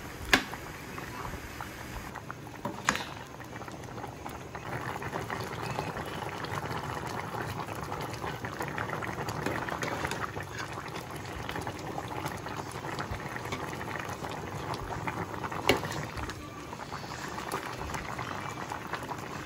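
Pot of pork, jackfruit and pigeon pea soup boiling: steady bubbling with a few sharp clicks.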